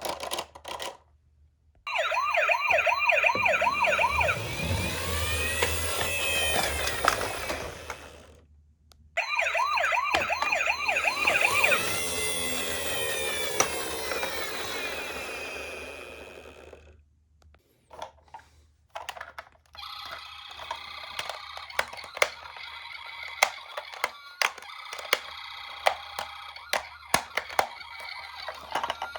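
Electronic sirens of toy ambulance minicars playing through small speakers: a warbling siren sounds twice, from about two seconds in and again from about nine seconds, then a different, steadier siren tone runs near the end. Sharp plastic clicks and rattles run throughout, most densely during the last siren.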